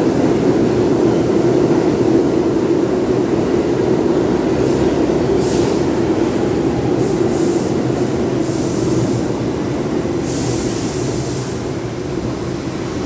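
New York City subway train rumbling along the platform track as it slows into the station. Several short, high-pitched brake squeals come in the second half, and the rumble eases as the train comes nearly to a stop near the end.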